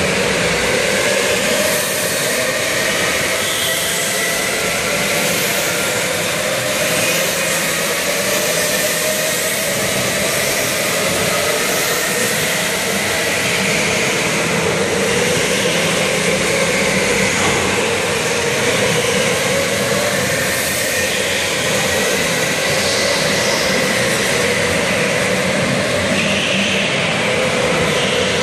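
Several electric go-karts racing around an indoor track: a loud, steady din of motor whine, with pitches gliding up and down as the karts speed up and brake through the corners.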